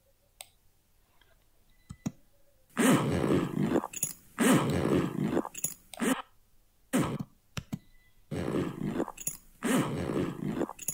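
Handbag zipper sound effect played back on a loop: several rasping zips, each about a second long with short gaps, starting about three seconds in. Before them come two faint clicks.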